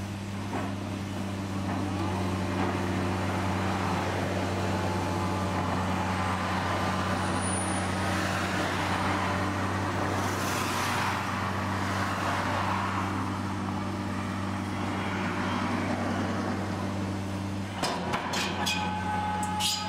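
Diesel engine of an excavator-mounted auger drill rig running steadily under hydraulic load, with several sharp metallic clanks near the end.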